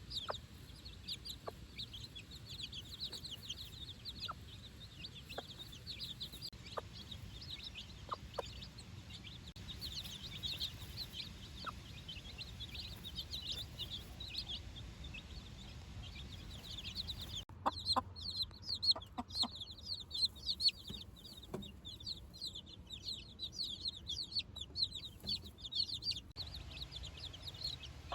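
A brood of four-day-old chicks peeping continuously in many high, short chirps, with a few short lower clucks from the mother hen. About two-thirds of the way in the peeping becomes louder and sharper.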